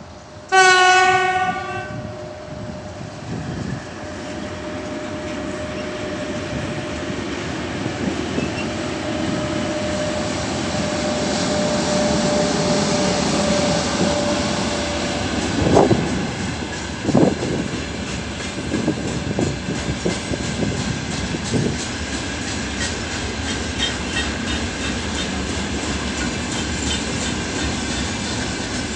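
A 2ES5K Ermak electric locomotive set gives one short horn blast. Then the locomotives and their freight train roll past with a loud, building rumble. Two sharp thumps come about halfway through, and after that the wheels of the wagons clack steadily over the rail joints.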